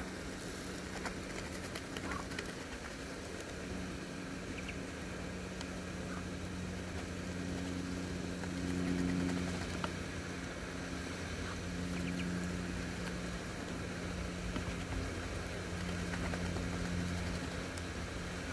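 A steady low motor hum, swelling a little about halfway through, with a few faint clicks of ducklings pecking grain from a hand.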